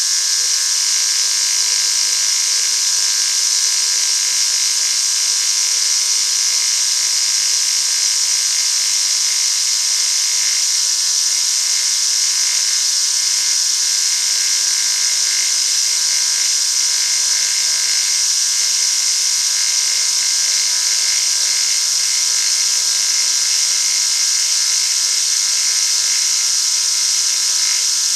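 A machine tool running steadily through a metal cut, giving a constant high-pitched whine.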